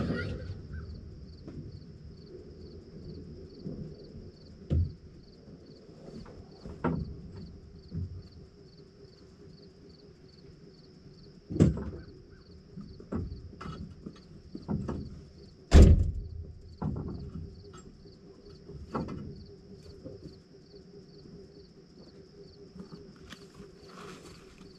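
Scattered metal clunks and knocks, the loudest about 16 seconds in, from the excavator's cab door and the operator climbing down off the machine. A faint, steady, pulsing insect trill runs beneath.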